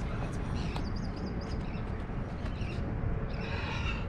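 Outdoor ambience on a fishing pier: steady wind rumble on the microphone with small birds chirping in quick repeated notes, and a louder, harsher call-like sound lasting under a second near the end.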